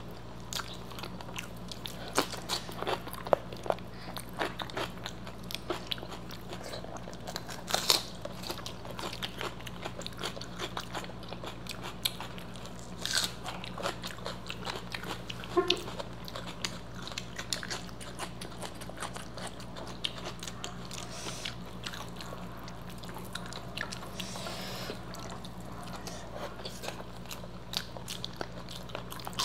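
Close-miked eating with the fingers: chewing and crunching of crispy fried food such as pakodas and papad, a run of short sharp crunches and mouth clicks, over a low steady hum.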